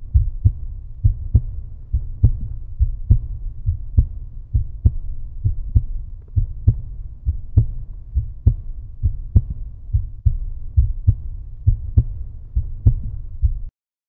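A deep, heartbeat-like thudding pulse on the outro soundtrack, about two thuds a second. It cuts off abruptly near the end.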